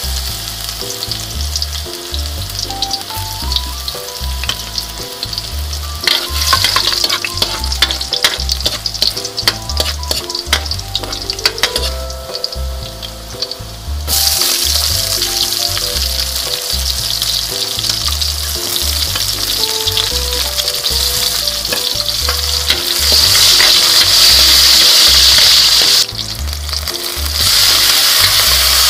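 Minced garlic sizzling in hot oil in a wok, with quick clicks and crackles through the middle. The sizzle grows louder about halfway through as sliced red onion goes into the oil, and again near the end as canned tuna is added.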